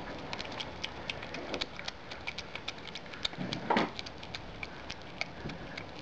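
Common brushtail possum chewing a banana: a fast, irregular run of small smacking, clicking chews, with one louder, longer mouthful sound about two-thirds of the way through.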